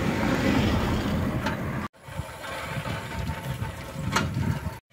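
Bicycle riding over a brick-paved road: a steady low rumble, with two sharp clicks about one and a half and four seconds in. The sound drops out briefly near two seconds in.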